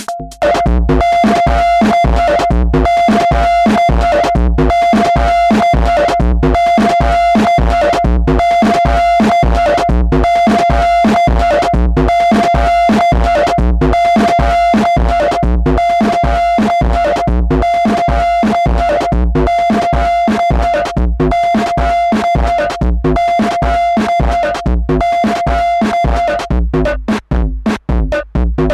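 Electronic drum-machine beat loop from a Roland TR-6S, distorted and overdriven through an analogue effects pedal: fast, even hits with heavy bass under a steady held high tone. The beat comes in at full level about a second in, and the held tone drops out about two seconds before the end.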